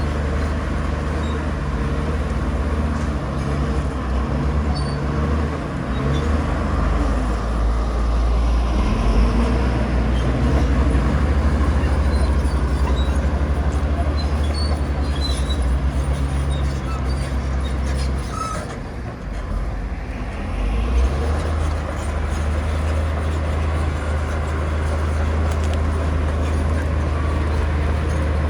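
Heavy diesel engine of earthmoving machinery running steadily under load, easing off briefly about two-thirds of the way through and then picking up again.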